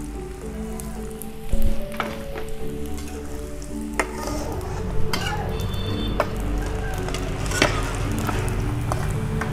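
Wonton-wrapped rice cireng deep-frying in hot oil in an aluminium wok: a steady sizzle. A metal spatula and strainer knock and clink against the wok several times, loudest about a second and a half in.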